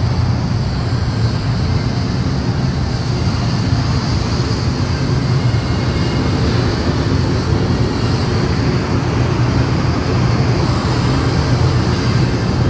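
AVIC AG600 amphibious aircraft's four WJ-6 turboprop engines running as it taxis, a steady low propeller drone over an even hiss.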